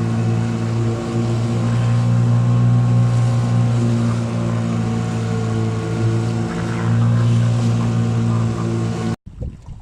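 Motorboat engine running at a steady pitch, cut off abruptly near the end and replaced by wind buffeting the microphone.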